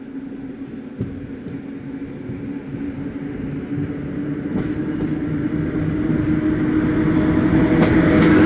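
EP08 electric locomotive hauling an express passenger train as it approaches and runs past: a steady low hum over a rumble that grows steadily louder as it nears, with a few sharp clicks near the end.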